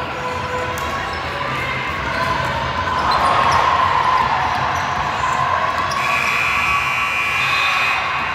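Basketball game sounds in a gym: the ball bouncing on the hardwood, with high squeaks through the middle and toward the end, over a background of voices.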